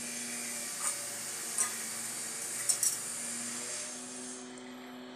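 Milk tea boiling in a clay kullad cup set in the embers of a clay stove: a steady hiss with four brief sharp clicks.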